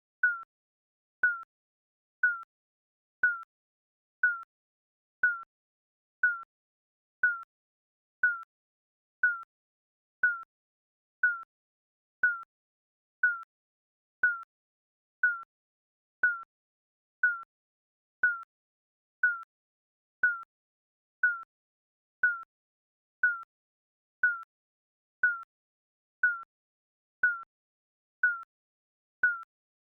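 Digital countdown timer beeps: one short electronic beep each second, a single mid-pitched tone that dips slightly and dies away quickly.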